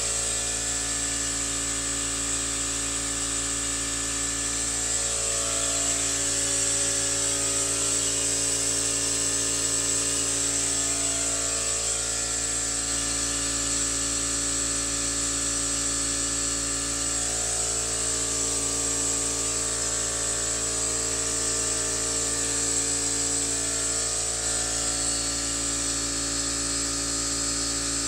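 Air compressor running steadily while compressed air hisses through a venturi vacuum adapter, pulling a vacuum on a car's cooling system as the gauge climbs toward about −22 inHg. The motor's hum holds steady throughout, with a strong high-pitched air hiss over it.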